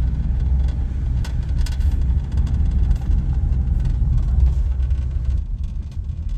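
Car driving, heard from inside the cabin: a steady low road-and-engine rumble with a few light knocks and rattles.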